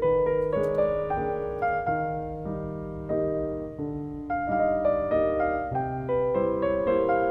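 Background piano music: a gentle melody of single notes over sustained bass notes.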